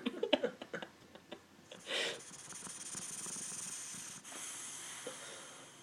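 Boxer dog snoring in its sleep: a rapid fluttering snore for the first second and a half, a snort about two seconds in, then a long hissing breath lasting about three seconds.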